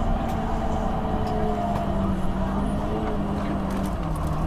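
Cummins ISL 8.9 inline-six diesel of a Thomas Saf-T-Liner HDX school bus running, heard from inside the passenger cabin: a steady engine drone whose pitch sags slightly and then drops a step near the end.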